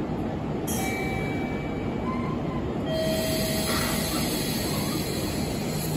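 JR Kyushu 817 series electric train uncoupled from its partner unit and starting to pull away: a steady low hum, with an air hiss that starts about a second in and grows louder about three seconds in, and a few brief high-pitched wheel squeals.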